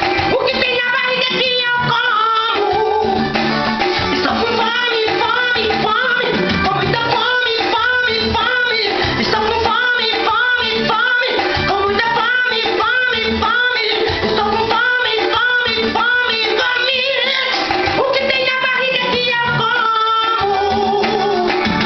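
A song: a singing voice over instrumental accompaniment with a steady beat.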